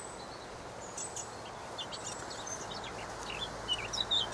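Small birds chirping and singing over a steady outdoor hiss, with quick high chirps that grow busier and louder near the end.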